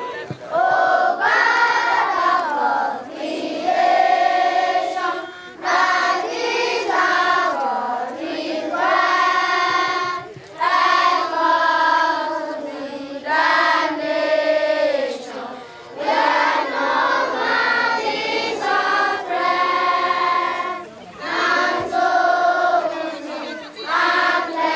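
A group of voices singing together, phrase after phrase, each line lasting a second or two with short breaks between.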